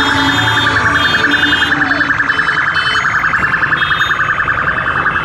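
A loud, high, rapidly trilling alarm tone, steady in pitch, with faint music notes underneath in the first couple of seconds.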